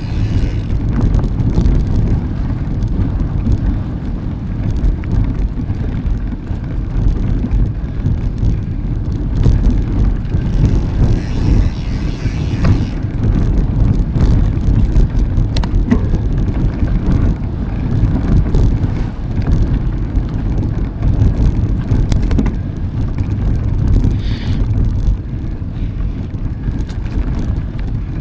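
Mountain bike being ridden: a steady low rumble of wind on the microphone and tyres rolling over the trail, with a couple of sharp clicks partway through.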